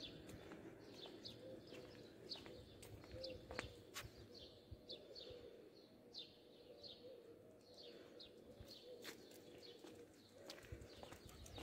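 Faint birdsong: small birds chirping in short, high, falling notes, several every second or two, over a faint steady hum with a few soft clicks.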